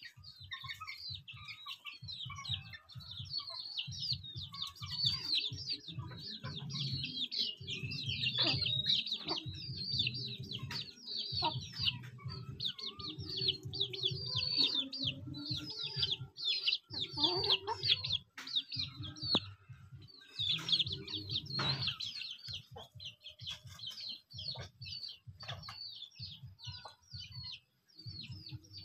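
A flock of free-ranging chickens: constant rapid, high-pitched chirping with occasional clucks and calls. A choppy low rumble runs underneath.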